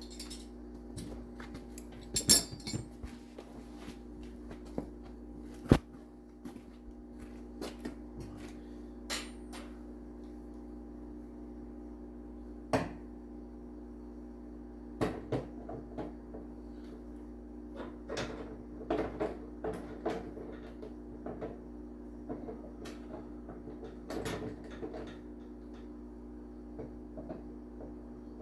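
Irregular metallic clicks and clinks of pliers and small metal parts as a retaining clip is worked off a snowblower chute cable, with a few sharper knocks about two and six seconds in, over a steady hum.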